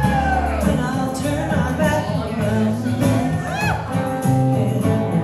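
Live band playing a song: electric and acoustic guitars with drums, and a woman singing.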